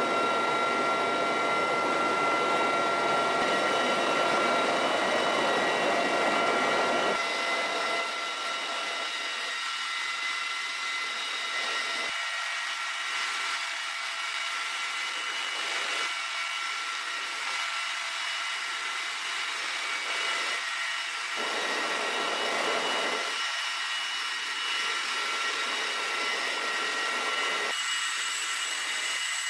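Steady cabin noise of an MH-53E Sea Dragon helicopter in flight: a rushing hiss with several high, steady whines over it. The lower part of the noise cuts in and out abruptly a few times.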